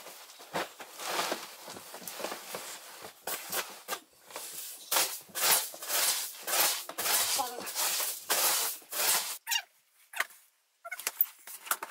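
White cotton bedding rustling and swishing as a duvet is shaken out and spread and the sheet is smoothed by hand, in a run of quick strokes. The sound drops out for about a second near the end.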